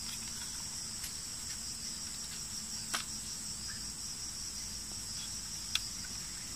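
Steady, high-pitched insect chorus in two shrill bands, with a few light clicks and taps as the wooden board and bamboo trigger of a squirrel trap are handled; the sharpest tap comes about three seconds in and another near the end.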